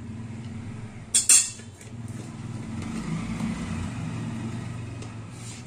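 A steel spoon clinks sharply against a steel plate about a second in, over a steady low mechanical hum that swells a little in the middle.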